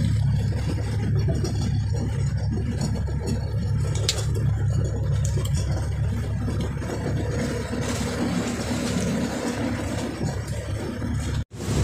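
A large motor boat's engine running steadily while under way, a constant low drone with water and wind noise over it. The sound drops out for an instant near the end.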